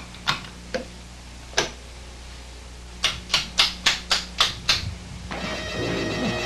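Switches on a control panel clicking: a few single clicks, then a quick run of about seven clicks at roughly four a second. Steady tones come in near the end.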